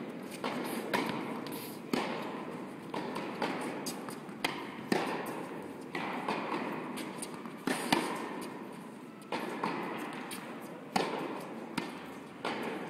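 Tennis rally: the sharp pock of balls struck by rackets and bouncing on the court, about one or two a second, each hit echoing in a large indoor tennis hall. The loudest hit comes about eight seconds in, from the forehand of the player nearest.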